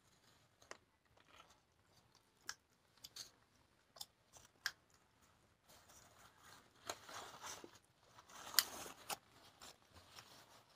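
Paper rustling and crinkling as sublimation transfer paper is peeled off printed paper towels and the towel sheets are lifted: scattered small clicks and ticks at first, then a longer run of rustling from about six seconds in, with one sharp crackle in the middle of it.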